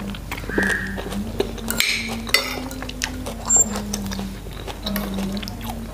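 Metal spoon and fork clinking and scraping against a ceramic plate while someone eats, with scattered short clinks over soft background music.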